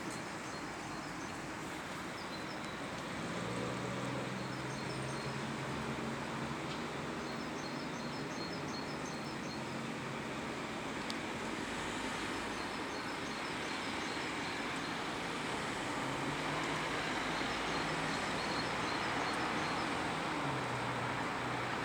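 Steady outdoor background of vehicle-like rumble and hiss, with a low engine hum that changes pitch a few times, and short runs of faint high chirps.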